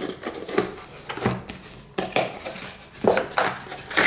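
Cardboard packaging being handled as items are taken out of a box: an irregular run of taps, scrapes and rustles, loudest near the end.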